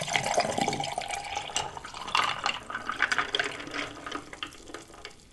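A drink poured from a foam cup over ice into a glass boot mug: a steady splashing pour with the ice clicking, trailing off near the end.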